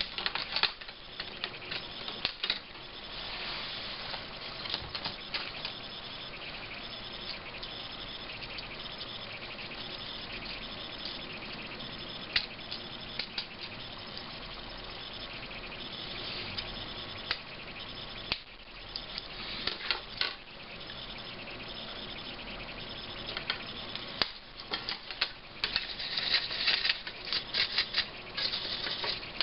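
Hand sanding of a laptop's plastic case: a steady scratchy rubbing with scattered clicks and taps, busier near the end.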